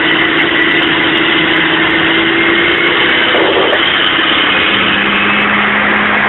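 Mack dump truck's diesel engine running, heard from inside the cab. Its steady note gives way to a lower one about three to four seconds in.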